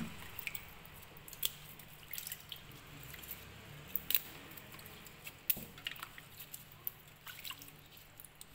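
Hands washing leafy greens in a basin of water: irregular small splashes, drips and wet squelches as the leaves are squeezed and picked apart.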